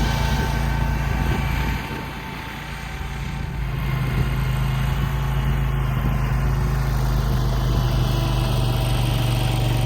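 Mini snowcat's small gasoline engine running steadily as the tracked machine is driven; it goes briefly quieter about two seconds in, then steadies again.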